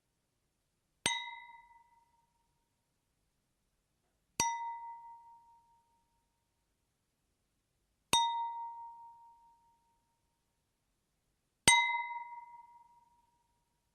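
A glass struck four times, about three and a half seconds apart, each strike giving a clear ding at the same pitch that rings out and fades over about a second, like a glass tapped to call for a toast.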